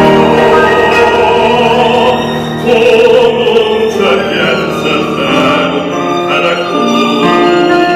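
Classical music: an operatic voice singing held notes over instrumental accompaniment.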